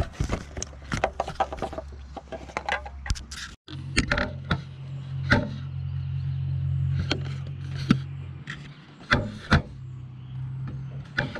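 Handling noise: a string of sharp clicks and taps with some rubbing over a steady low hum. The hum drops out for an instant about three and a half seconds in and comes back at a slightly different pitch.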